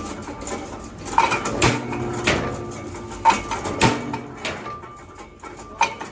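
Irregular metal clanks and knocks, about seven in all, some ringing briefly: metal parts being struck or handled at a workshop press.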